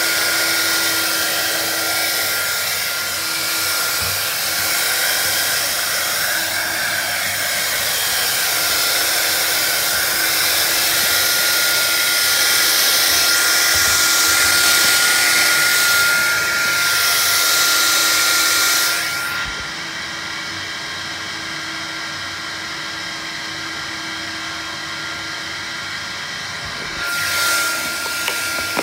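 Vax Air Cordless vacuum cleaner running, a steady motor whine over rushing air. About two-thirds of the way through the airy hiss drops away and it runs quieter, swelling briefly again near the end.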